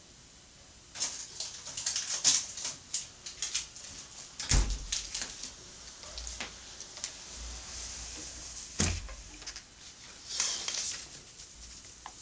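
A person moving about and handling plastic-wrapped processed cheese slices: clicks and rustling start about a second in, with two dull thumps, one near the middle and one about two-thirds through.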